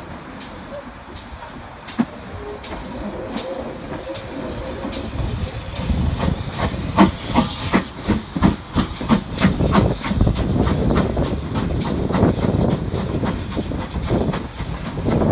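GWR 4575 class small prairie tank locomotive No. 5542 pulling away under steam: a hiss of steam at first, then, from about a third of the way in, a string of loud, evenly spaced exhaust chuffs as it gets going.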